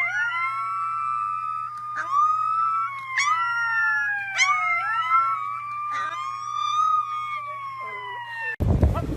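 Several dogs howling together in overlapping high howls. Each howl rises quickly and then slides slowly down in pitch, with a few short yips among them.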